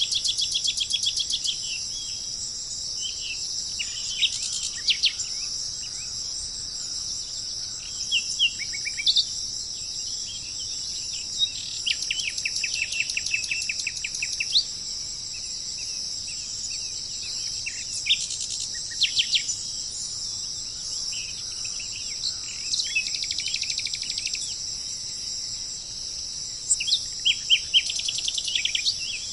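Wild birds calling over a steady, high-pitched insect chorus. Short sharp notes and fast trills of repeated notes come and go, with a loud cluster of calls near the end.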